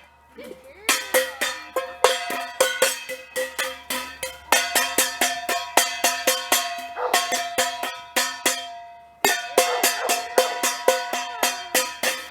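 A ringing metal object struck hard and fast over and over, about five clangs a second, with a short break a little before the end. It is the deliberate banging of a noise test, checking whether a young dog will keep retrieving through sudden loud noise.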